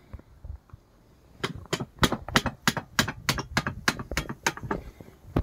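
A steady run of sharp metallic clicks, about three a second, from hand-tool work on a motorcycle's rear wheel during a puncture repair, starting about a second and a half in and stopping near the end.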